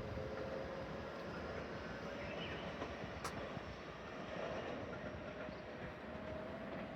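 IR Ishikawa Railway train running: a steady rumble with a faint whine held underneath, and a single sharp click about three seconds in.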